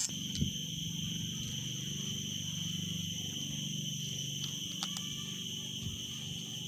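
A steady, high-pitched, insect-like drone over a faint low hum, with a few light clicks.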